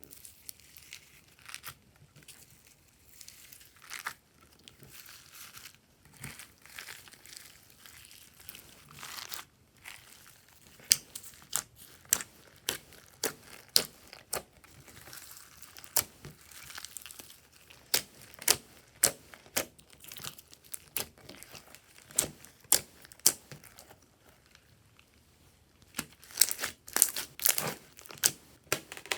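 Hands kneading and stretching glossy slime: soft sticky crackling, then from about a third of the way in a steady run of sharp, irregular clicking pops that grows densest near the end.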